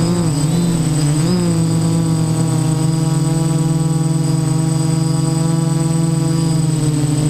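The six brushless motors and 10-inch propellers of a DJI Naza-M Y6 multirotor buzzing in flight, heard close up from the camera mounted on the craft. The pitch dips and rises twice in the first second and a half as the throttle shifts, then holds steady.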